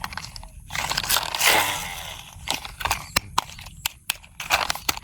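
Hands handling a plastic toy truck and its packaging: rustling in the first two seconds, then a run of irregular light clicks and taps.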